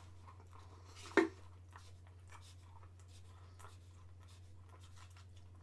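Biting into and chewing a hard milk-chocolate bar with crispy rice pieces: faint scratchy crunching, with one short, louder sound about a second in. The chocolate is hard and tough to bite into.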